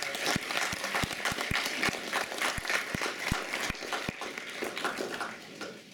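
Audience and panel applauding: a dense patter of many hands clapping that dies away near the end.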